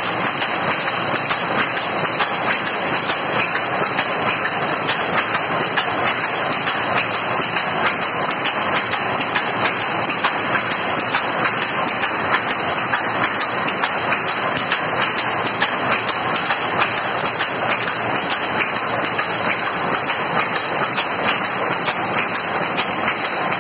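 Power loom with a lappet device running steadily while weaving nylon kotta fabric: a loud, fast, even mechanical clatter of the beating sley and picking motion that never lets up.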